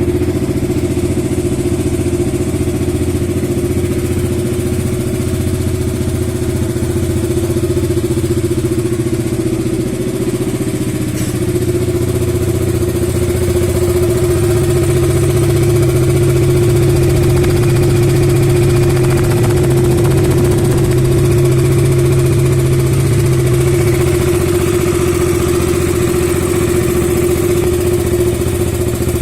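KTM Duke 200's single-cylinder four-stroke engine idling steadily, with a steady whine over the engine note that the uploader puts down to the timing chain. It gets slightly fuller and louder about halfway through.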